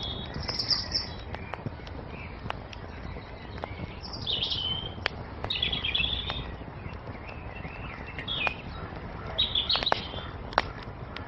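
Wood fire crackling, with scattered sharp pops over a steady low rush, while songbirds chirp in short, high phrases several times.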